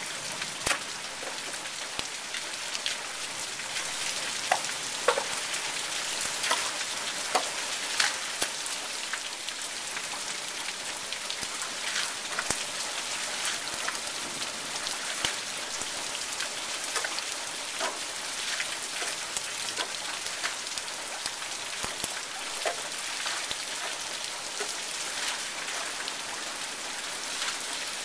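Steady rain falling, an even hiss with many sharp individual drop hits scattered irregularly throughout.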